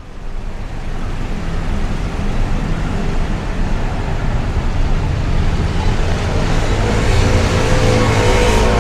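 Road traffic noise: a steady wash of passing vehicles, fading up over the first second or so, then holding steady.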